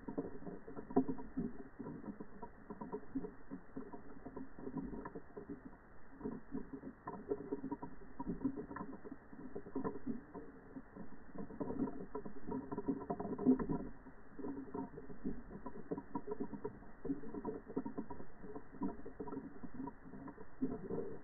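Underwater noise from a WaterWolf camera towed on a fishing line: an uneven rattling patter of small knocks over a low, steady hum.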